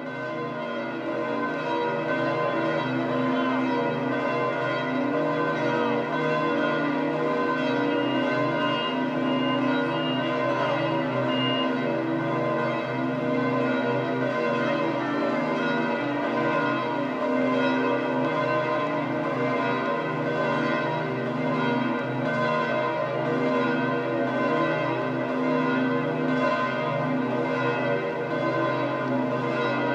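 Church bells of St. Peter's Basilica pealing continuously, many bells overlapping, swelling up over the first second or two and then ringing at a steady level.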